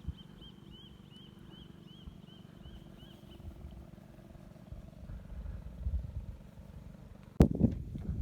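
Outdoor ambience with a low rumble and an animal's repeated high chirping call, about two short notes a second, which stops about three and a half seconds in. Near the end a sharp knock is followed by louder rumbling noise.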